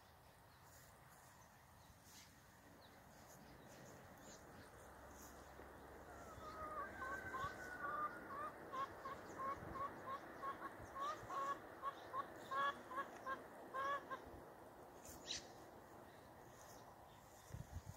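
A chicken calling in a run of short repeated clucks, about two or three a second, starting about six seconds in and stopping about eight seconds later.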